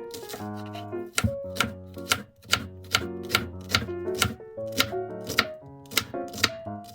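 Knife chopping on a cutting board in a steady rhythm of about two to three strokes a second, over light background music.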